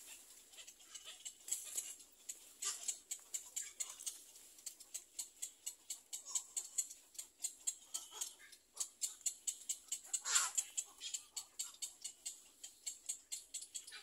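Little egret chicks in the nest giving a fast, even run of dry ticking calls, about five a second, with a few louder, harsher calls among them, the loudest about ten seconds in.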